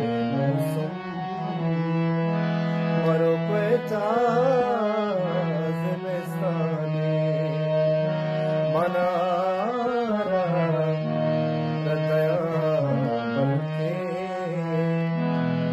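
A man singing a Balochi song in a wavering, ornamented melody line over steady held instrumental notes that shift in steps.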